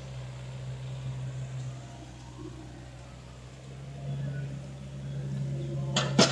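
Diesel engine of a Komatsu PC45MR mini excavator running steadily while the sunken machine works its arm to lever itself out of the mud, the engine getting louder about four seconds in. Two sharp knocks come near the end.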